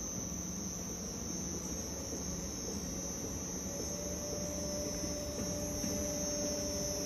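Planetary mixer's low-speed drive, an inverter-fed explosion-proof motor and gear reducer, running and being sped up: a steady hum with a high whine over it, the drive's tone stepping up in pitch about four seconds in and then holding.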